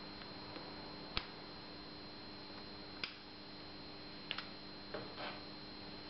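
Scattered small sharp clicks and taps as the cover plate and its wiring are handled and pressed back into place on an electric trials bike: a single click about a second in, another around three seconds, a quick double click a little past four seconds, then a click and a brief rustle near the end.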